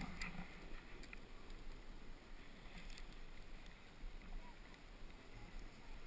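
Faint, steady scraping hiss of a snowboard sliding slowly over snow, with a few light clicks.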